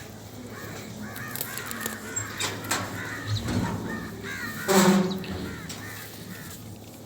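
Crows cawing repeatedly, the loudest call about five seconds in.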